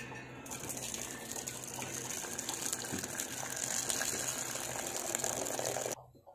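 Starch water poured from a pot of freshly cooked rice into a stainless steel vessel as the rice is drained: a steady splashing pour that stops suddenly near the end.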